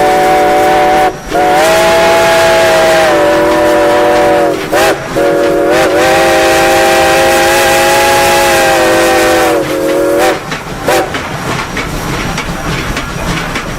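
Train whistle sounding a loud chord of several notes in long blasts, with a brief break about a second in and two short toots around five seconds. The last blast stops near ten seconds and is followed by two quick toots. After that the passing train rumbles and clatters.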